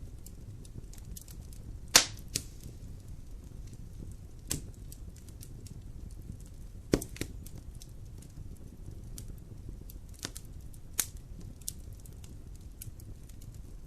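Wood fire burning in a fireplace: a low steady rumble of flames with scattered sharp crackles and pops, the loudest pop about two seconds in and a few more spread through the rest.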